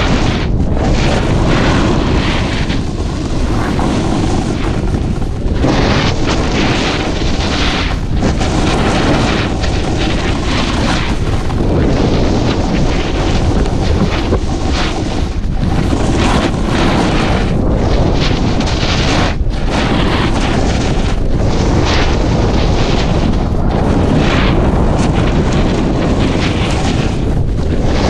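Loud, steady wind buffeting a camera's microphone as a skier moves fast downhill, a low, rumbling rush that flutters without letting up.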